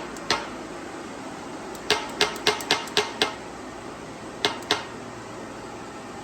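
Sharp metal-on-metal taps from working on engine parts by hand: one just after the start, a quick run of six at about four a second around two to three seconds in, then two more a little later.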